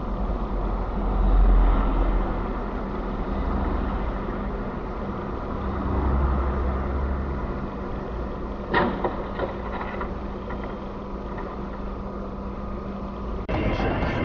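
Steady road and engine rumble of a moving car, with a sharp knock or bang about nine seconds in.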